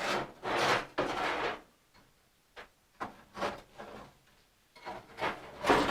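Sheet-metal front-end parts of a 1957 Chevy scraping and clunking in a series of short bursts, with brief pauses between them, as the front end is pried apart to fit the core support.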